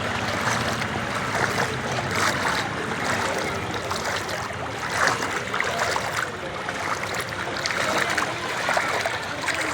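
Floodwater flowing fast: a steady rush of water.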